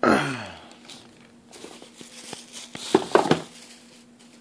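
Packaging being handled: plastic wrap crinkling and cardboard boxes knocking. It opens with a short, loud sliding sound falling in pitch, and there is a cluster of sharp clicks and crinkles about three seconds in.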